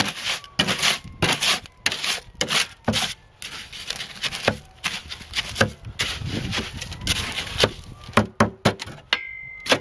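A hoe scraping and chopping through wet gravelly concrete mix in a steel wheelbarrow, in repeated rough strokes about twice a second. The mix is being worked loose with added water so that it will pour.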